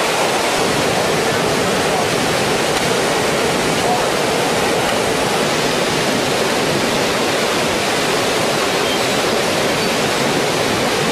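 Fast, turbulent muddy floodwater rushing past in a steady, loud roar of churning water.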